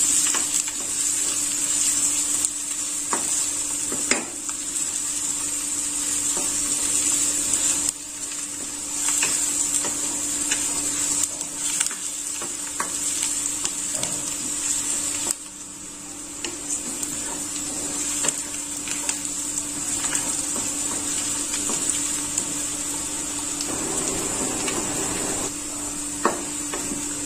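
Chopped onions sizzling steadily in hot mustard oil in a metal kadhai while they brown toward golden, with a wooden spatula scraping and knocking against the pan as it stirs.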